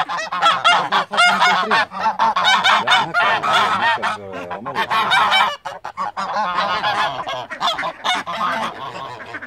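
A flock of domestic geese honking loudly and almost without pause, many calls overlapping. It softens a little after about five and a half seconds.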